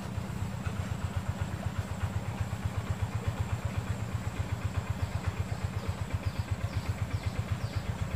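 A small engine running steadily, a fast even low throb. From about halfway through, a short high chirp repeats about twice a second.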